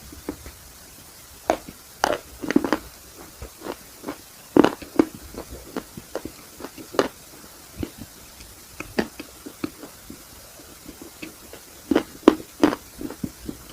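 Close-up eating sounds of an ice cream cone: irregular crisp bites and crunches of the cone, with mouth and chewing noises, coming in clusters, the loudest about two seconds in, around four and a half seconds, and near the end.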